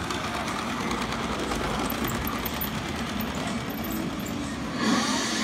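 Model electric train running on a layout, a steady rumble of its motor and wheels on the track, briefly louder near the end.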